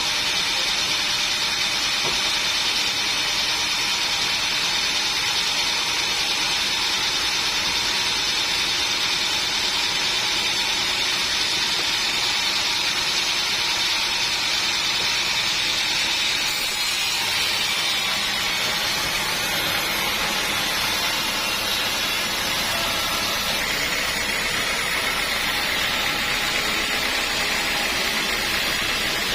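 Sawmill machine sawing teak wood: a steady, high-pitched hissing whine that shifts slightly in tone about 17 seconds in and again about 24 seconds in.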